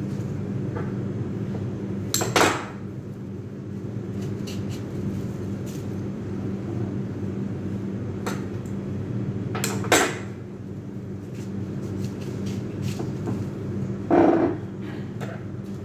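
Steady low hum with three short knocks and clatters of a heavy glass vase and florist's tools being handled on a stone countertop; the last and fullest comes near the end as the vase is moved.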